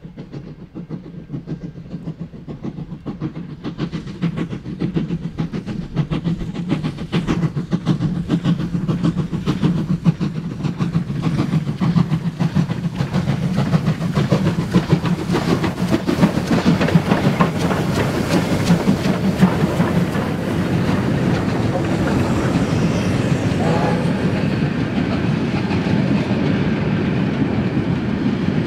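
Three triple-headed Victorian Railways steam locomotives (D3 639, A2 986 and R761) hauling a passenger train, their rapid exhaust beats growing steadily louder as they approach and pass. From about two-thirds of the way in, the steadier rumble and clicking of the carriage wheels over the rail joints takes over as the train rolls by.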